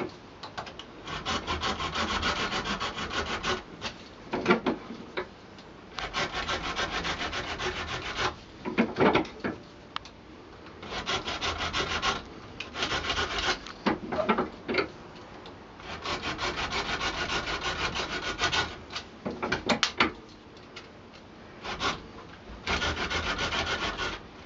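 Wooden dowel on a walking stick's end being worked by hand in a bench vise, its shoulder taken down to make room for a washer under a horn handle. Repeated bursts of quick rubbing strokes, each a second or three long, with short pauses and a few knocks between.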